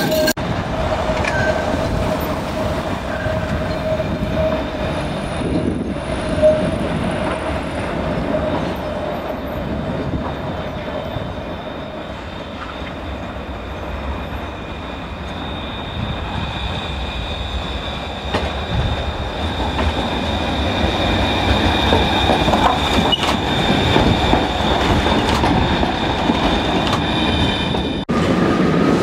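Alstom RegioCitadis trams running on street track: a steady wheel squeal as one tram rounds the curve in the first few seconds, then a steady high whine as another approaches, with rumble of wheels on rail throughout. The sound cuts off abruptly near the end.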